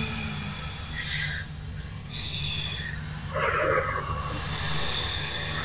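Experimental noise soundtrack. A steady low hum runs under fixed high ringing tones. A burst of hiss comes about a second in, a rougher grinding burst about three and a half seconds in, and a brighter high tone swells near the end.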